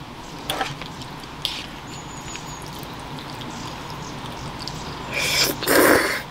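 Eating spaghetti: a few small clinks of a utensil against the bowl, then a loud slurp of noodles from a spoon about five seconds in.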